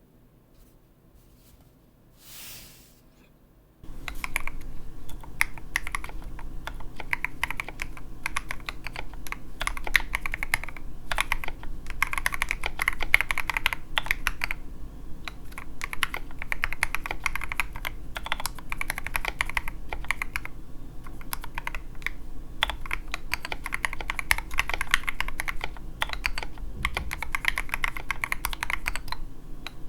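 Mechanical keyboard with lubed and filmed Everglide Sakura Pink linear switches, SA-profile ABS keycaps and a foam-filled resin case, typed on steadily and fast on a 3 mm mousepad. The typing starts about four seconds in, after near quiet.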